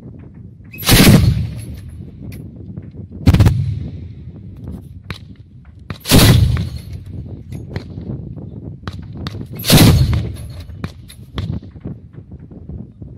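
Truck-mounted ZU-23-2 twin 23mm anti-aircraft autocannon firing four short bursts, about two to three and a half seconds apart, each a loud half-second blast with an echoing tail.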